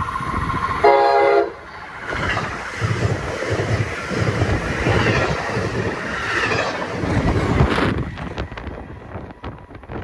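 MARC commuter train sounding a short, loud horn blast about a second in, then passing close with its wheels clattering over the rails. The train sound cuts off abruptly near the end.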